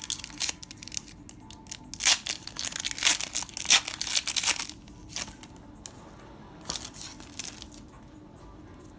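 A foil Pokémon card booster pack being torn open and its wrapper crinkled, in a run of loud tearing and rustling over the first five seconds, then a few softer rustles as the pack is handled.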